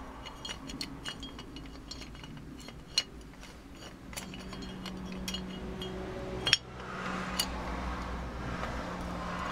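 Metal and plastic parts of a Bosch motorcycle starter motor clicking and clinking in the hands as its end housing is fitted back onto the motor body, with two sharper knocks about three and six and a half seconds in. A low steady hum sits underneath from about four seconds in.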